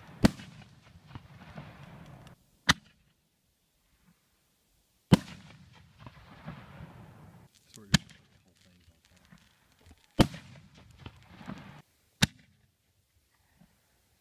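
Fireworks going off: six sharp bangs a couple of seconds apart, several of them followed by a fading tail of noise.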